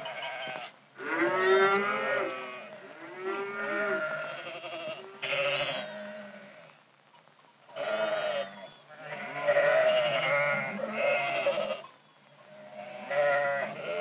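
Young Guernsey calves bawling: about six separate wavering calls, each lasting about a second, with short pauses between them.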